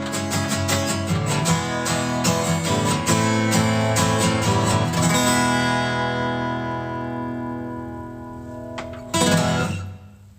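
Acoustic guitar strummed in quick strokes, then a chord left ringing and slowly fading, the closing bars of the song; one last short strum comes near the end before the sound drops away.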